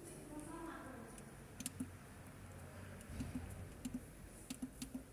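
Membrane keypad buttons on a vacuum conveyor's control panel being pressed, a series of short clicks: a pair early on, a few more in the middle and a quicker run near the end.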